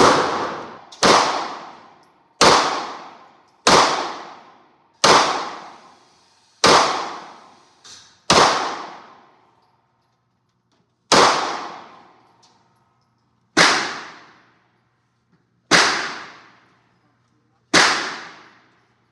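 Single gunshots fired one at a time, about eleven of them at intervals of one to two and a half seconds, each with a sharp crack and a long echoing tail.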